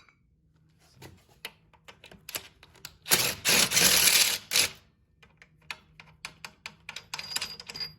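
Socket ratchet clicking in short runs as 17 mm bolts are backed out of an engine bracket, with a louder, denser burst lasting about a second and a half, about three seconds in.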